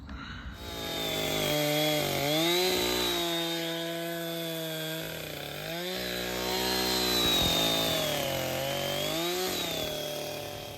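Two-stroke chainsaw engine running in an Alaskan chainsaw mill, ripping a cherry log lengthwise. Its pitch rises and falls several times as it runs.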